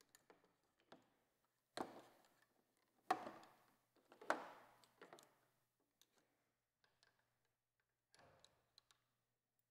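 Faint clicks and taps from hands handling the front brake master cylinder and handlebar controls, with three louder knocks about two, three and four seconds in.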